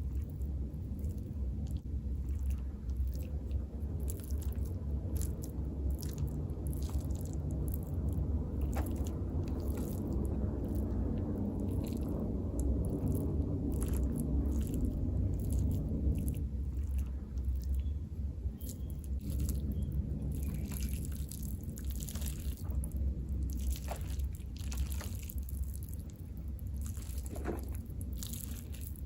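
Close-miked wet chewing and biting of food, with scattered short mouth clicks, over a steady low hum.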